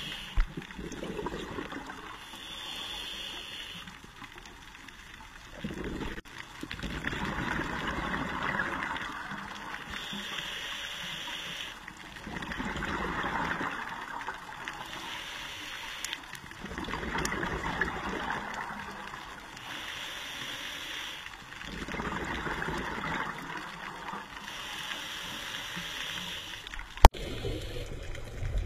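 Scuba diver breathing through a regulator underwater: a short hiss of inhaled air, then a longer burst of bubbling exhaust, repeating about every five seconds. A single sharp click near the end.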